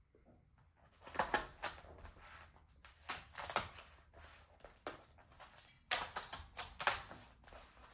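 Scissors slicing and scraping along the tape of a polystyrene foam shipping box, with the packaging rustling and clicking in irregular bursts.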